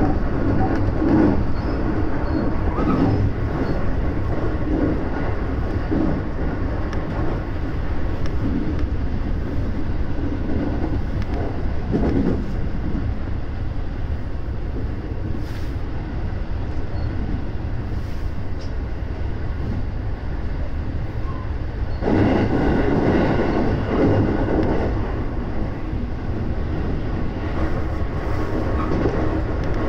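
Running noise of a JR West 223-series electric train heard inside its front cab car (KuHa 222, a car without motors): a steady rumble of wheels on rail with scattered short knocks. The noise grows louder for a few seconds about two-thirds of the way through.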